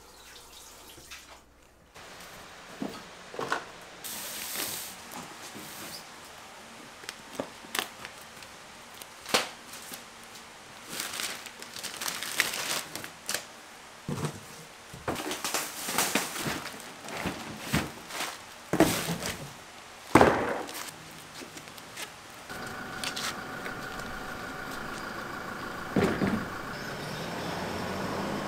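Scattered knocks, clicks and rustles of things being handled and set down in a small room. In the last few seconds a steady hum sets in.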